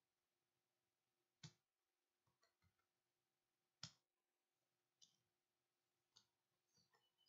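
Faint computer keyboard keystrokes: a few scattered key clicks, the two loudest about a second and a half and four seconds in, with smaller clicks between and near the end, as numbers and a symbol are typed in.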